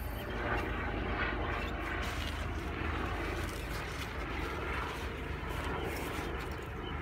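A steady, low engine drone from a distant motor.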